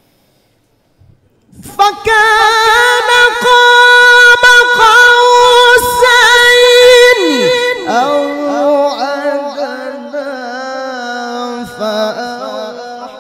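A male qari reciting the Quran in the drawn-out melodic mujawwad style into a microphone. After a moment of silence he comes in loud on a long, high held note with quick ornamental wavers, then falls to a lower, softer line with winding turns.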